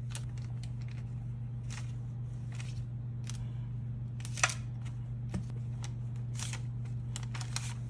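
A metal fork pressing down along the edges of a pastry on a parchment-lined baking sheet to seal it: scattered soft clicks and scrapes of the tines on the paper and tray, the sharpest about four and a half seconds in. Under them runs a steady low hum.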